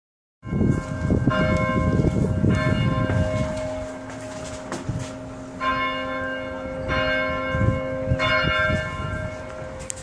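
Hallgrímskirkja's church bells ringing for noon: single strikes about a second and a quarter apart, each note ringing on, with a short lull in the middle. A low rumble runs underneath.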